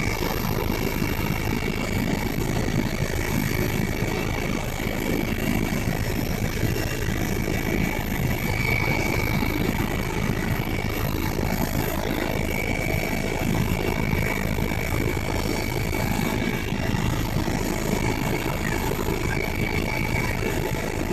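Helicopter engine and rotor running steadily, a continuous rumbling noise with a faint steady whine above it.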